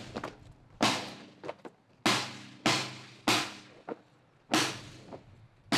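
Sharp percussive hits at a slow, even beat, about one every second and a quarter, each ringing away over about half a second, above a faint low held tone.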